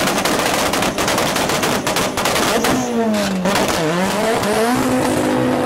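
Audi quattro race car held on the start line at high revs, with a rapid crackle of bangs. About three seconds in, the engine note drops and is blipped up and down.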